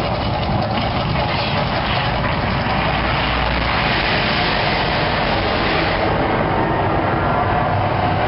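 Loud, steady rumbling roar of the Mirage volcano attraction's eruption, with its gas fire jets flaring.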